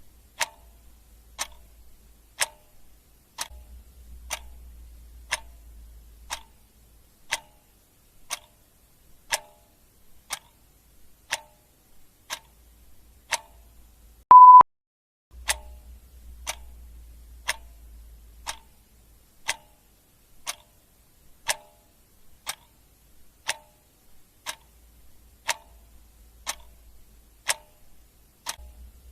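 A clock ticking steadily, about once a second. About halfway through, a single short high-pitched beep sounds, louder than the ticks. A faint low hum comes and goes underneath.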